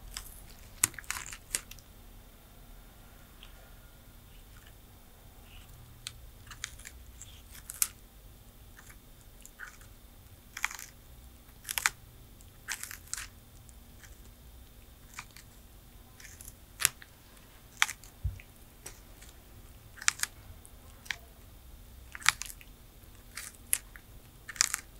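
Tortoises biting and chewing crunchy food, giving irregular sharp crunches, often two or three in quick succession, every second or so.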